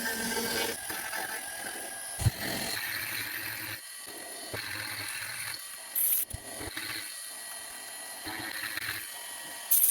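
CNC milling machine at work: irregular mechanical clatter with a sharp click, and two short high hissing bursts, one about six seconds in and one near the end.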